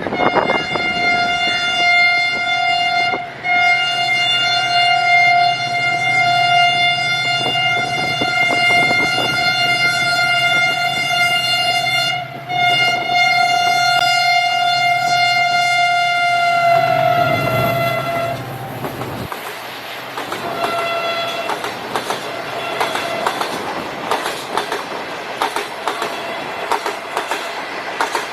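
Diesel locomotive horn held in a long blast of about eighteen seconds, broken twice for an instant, its pitch dropping as the locomotive goes past. A short toot follows a couple of seconds later. Then comes the clickety-clack of the train's wheels running over the rail joints.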